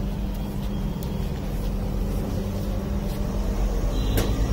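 Steady low mechanical rumble, with a light metallic clink about four seconds in as a metal mesh tray is set down by a steel counter.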